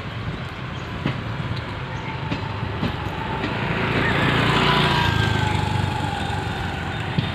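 Automobile carrier rail wagons rolling past, with a steady rumble and a few irregular wheel knocks over rail joints. The noise swells about four to five seconds in.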